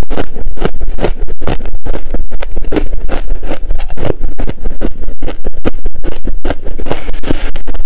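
Close-miked crunching of soft frost ice being chewed, a loud, fast run of crisp crackling crunches.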